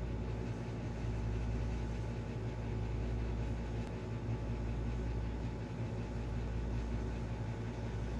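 A steady low mechanical hum with a faint hiss over it, unchanging throughout; no crunching or chewing stands out.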